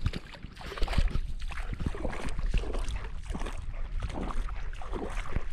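Footsteps wading through shallow seawater over a sandy tidal flat, with irregular splashes and sloshes.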